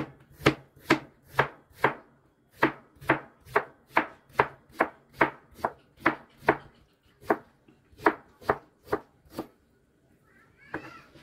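Kitchen knife slicing a peeled cucumber into rounds on a white plastic cutting board: a steady run of about twenty crisp chops, roughly two a second, each a knock of the blade through the cucumber onto the board. The chopping stops near the end.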